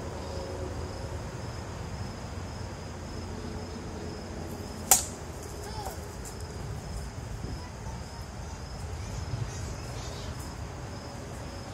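A single sharp crack about five seconds in: a plastic wiffle ball bat hitting a wiffle ball. Under it runs a steady high drone of insects.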